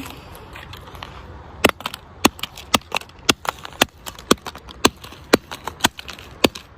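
A hammer striking an iPhone 7 over and over, sharp blows about twice a second starting a couple of seconds in.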